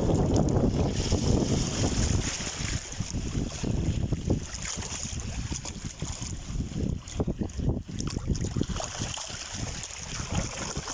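Wind buffeting the microphone over the steady hiss of ocean surf. The rumble is heaviest for the first couple of seconds, then comes in choppier gusts.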